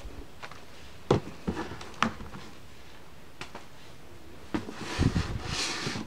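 Hardcover sound books being handled and laid on a table: several separate knocks and thumps, then a cluster of thumps with a sliding, rubbing sound near the end.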